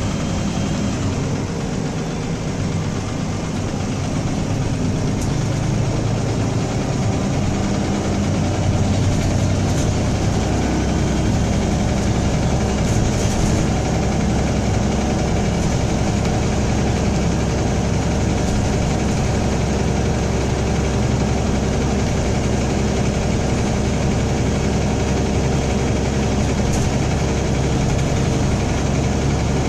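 Cabin sound of a MAN-chassis Alexander Dennis Enviro300 single-deck bus under way: its diesel engine running with a steady drone. From about four seconds in, a worn differential is thrashing.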